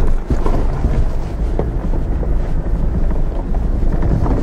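Subaru Outback Wilderness climbing a steep, rocky dirt hill: a dense low rumble with scattered knocks, mixed with wind buffeting the microphone.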